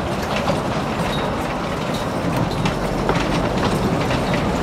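Wren-class narrow-gauge steam locomotive and its open passenger carriages passing close by, wheels rumbling steadily with frequent clicks and clacks over the track.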